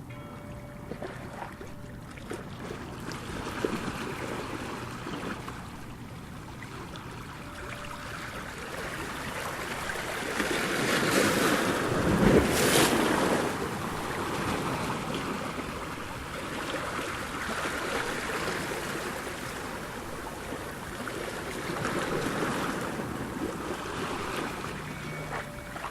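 Ocean surf: waves rolling in and breaking, a steady rushing wash that swells to its loudest about halfway through, then settles into smaller surges.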